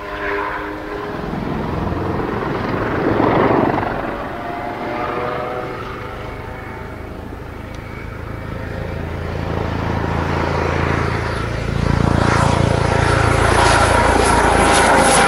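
Kawasaki OH-1 helicopter in flight: the main rotor beats low under the whine of its twin turboshaft engines. The sound swells about three seconds in, eases, then grows louder again from about ten seconds in as the helicopter comes close.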